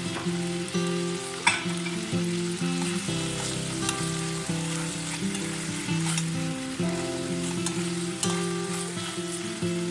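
Chicken pieces with chestnuts and mushrooms sizzling as they fry in oyster sauce in a pan, stirred with a utensil that scrapes and clicks now and then. A melody of sustained tones runs underneath.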